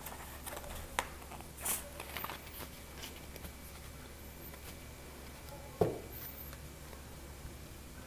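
Tarot cards being gathered up off a cloth-covered table and collected into a deck: faint sliding and a few light clicks, with one duller knock a little before six seconds in.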